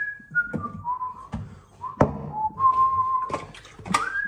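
A man whistling a slow tune, single clear notes stepping down and up in pitch. Several sharp knocks and clunks of handling things in the kitchen come in between, the loudest about two seconds in.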